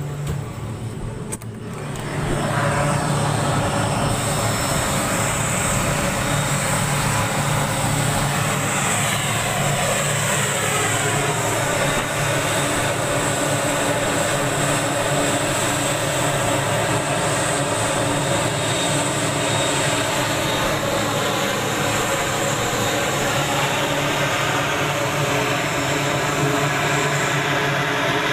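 Grumman C-2 Greyhound's two Allison T56 turboprop engines running as it taxis: a steady propeller drone with a high turbine whine. The sound jumps to full loudness about two seconds in, with slight shifts in pitch as the aircraft moves.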